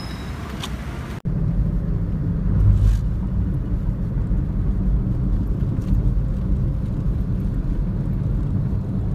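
Steady low rumble of a vehicle's engine and road noise heard from inside the cabin. In the first second, before an abrupt cut, there is a short stretch of street traffic noise.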